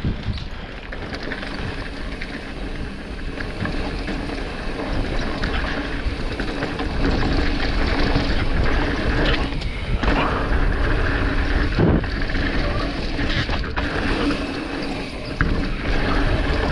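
Mountain bike riding down a rough trail: wind rushing over the microphone, with the bike's frame, chain and suspension rattling and knocking irregularly over bumps.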